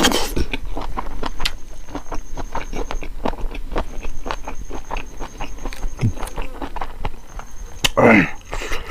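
Close-miked chewing of chicken gizzard curry with rice: a steady run of wet mouth clicks and smacks as the chewy gizzard is worked between the teeth. A short murmur-like voice sound comes near the end.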